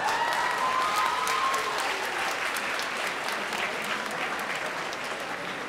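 Audience clapping and laughing at a joke. The laughter comes in the first couple of seconds, and the applause eases off slightly toward the end.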